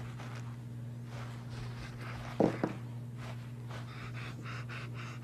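Dog panting in quick, even breaths, about four a second, from roughly four seconds in, over a steady low hum. Two short thumps about a quarter second apart, a little before halfway, are the loudest sounds.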